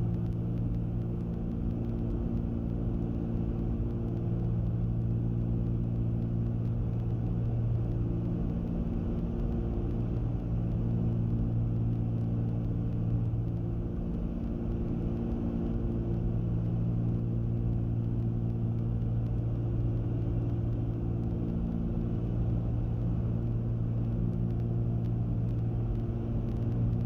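The twin six-cylinder piston engines and propellers of a Cessna 310Q droning steadily in flight on final approach.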